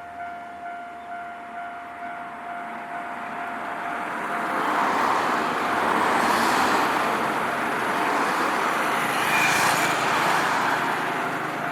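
Railway level-crossing warning bell ringing, about two and a half strikes a second, as a train passes over the crossing: the train's noise swells from about four seconds in, stays loud and eases off near the end.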